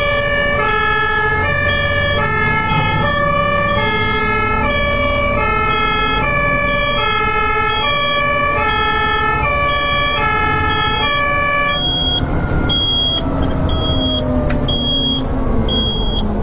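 German fire engine's two-tone siren (Martinshorn) alternating steadily between a high and a low note, heard from inside the cab over the truck's engine and road noise. The siren stops about twelve seconds in. The engine note then falls as the truck slows, and a high beep repeats several times.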